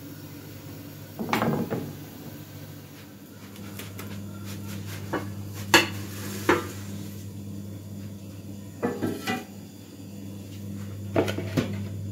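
Kitchenware knocking and clinking as a cooked crepe is turned out of a large flat crepe pan onto a plate and the plastic batter bowl is picked up: several short clusters of sharp knocks. A steady low hum runs underneath.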